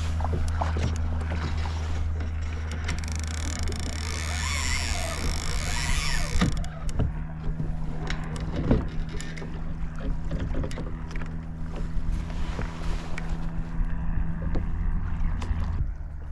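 Fishing reel and rod being worked on a kayak while playing a hooked tope: many short clicks and knocks over a steady low hum, with a hissy rush of noise for a few seconds near the start.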